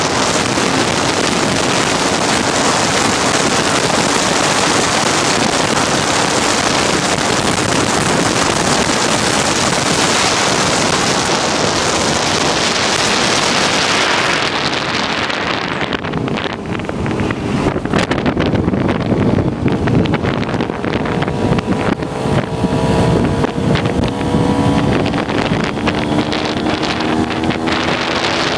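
Motorcycle ride with heavy wind rushing over the microphone. About halfway through the wind drops and the motorcycle engine's note comes through, rising in pitch.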